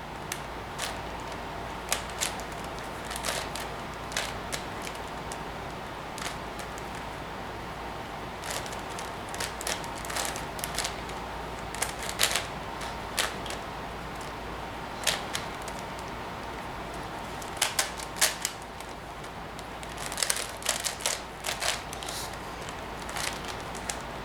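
Plastic 5x5 Rubik's Professor cube being turned by hand, its layers snapping into place in irregular sharp clicks, some single and some in quick runs.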